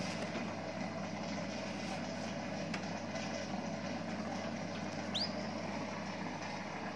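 A steady low hum with a single short, high chirp from a canary about five seconds in, sweeping quickly upward in pitch.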